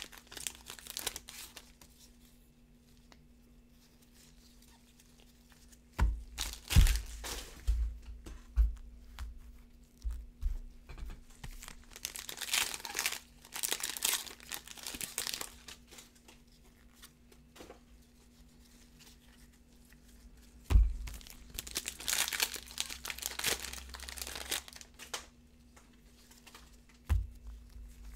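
Foil wrappers of Prizm football card packs crinkling and tearing as they are opened by hand, in several spells with short quiet gaps between. A few dull knocks on the table come in between.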